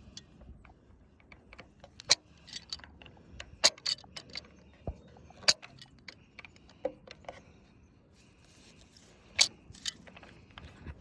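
Scattered sharp metallic clicks and clinks, like tools or metal fittings being handled, with the loudest strikes about two, three and a half, five and a half and nine seconds in.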